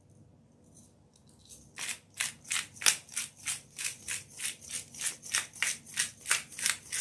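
Hand pepper mill grinding black pepper: a regular run of grinding twists, about three or four a second, starting about two seconds in.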